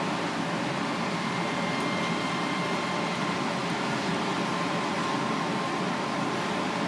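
Steady, even background hiss of running room machinery, with faint steady high whines. Pulling the bones with tweezers makes no clear sound of its own.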